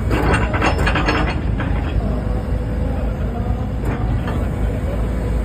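Hydraulic excavator running steadily, its hydraulics working as the Iwafuji GFB-90S feller-bucket-grapple attachment swivels and tilts. A cluster of sharp clicks and knocks comes in the first second or so, and a couple more about four seconds in.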